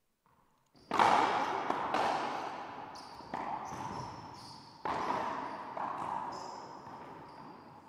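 Racquetball rally in a glass-walled court: sharp cracks of the ball off racquets, walls and floor, each echoing around the court. The loudest is the serve about a second in, with about five more over the next several seconds. Sneakers squeak briefly on the hardwood floor in between.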